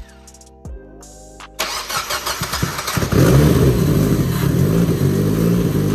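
Mazda Miata engine being cranked by its starter, loud from about three seconds in, turning over without catching; it is not getting fuel.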